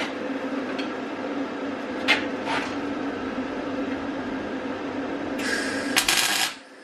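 A steady hum runs throughout, with a few light metal clicks. Then about a second of electric arc welding crackle on a steel bracket starts near the end and cuts off sharply.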